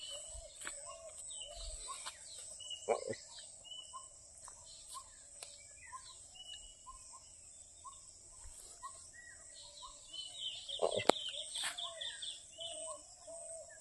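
Outdoor bird calls: many short chirps and whistled notes from several birds over a steady high tone, with a rapid trill about ten and a half seconds in. Two short sharp sounds stand out, about three seconds in and about eleven seconds in, the second the loudest.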